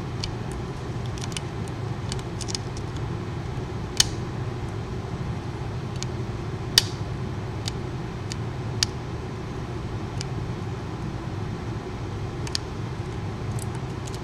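Scattered small metal clicks of a lock pick and tension tool working inside a three-ring Wise-Lock padlock, with three sharper clicks about four, seven and nine seconds in, over a steady low background hum.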